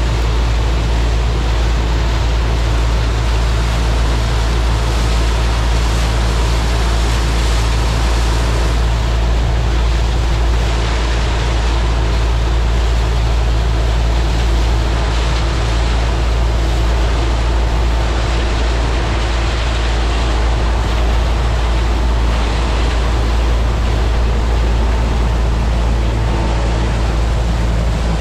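New Holland TR99 combine harvester running steadily under harvesting load, a deep engine hum with a constant rushing noise of the machine over it.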